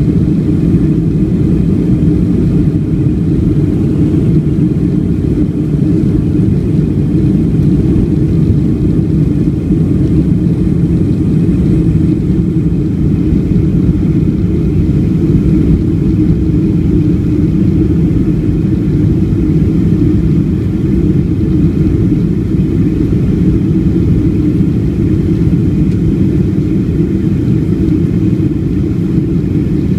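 Boeing 757-200 jet engines at takeoff thrust, heard from inside the cabin behind the wing: a loud, steady low rumble through the takeoff roll, liftoff and initial climb.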